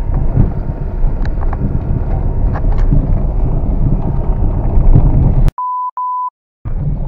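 VAZ 21099 driving over a rough dirt track: a steady engine and running-gear rumble with scattered knocks. About five and a half seconds in, the sound cuts out and two short, steady high beeps sound one after the other.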